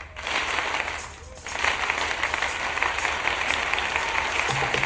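Audience applauding, a dense patter of many hands that swells about a second and a half in. Music starts up again near the end.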